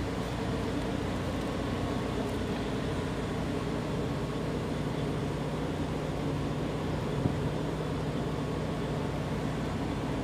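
Steady engine drone with several low hum tones held at a constant level, and one brief knock about seven seconds in.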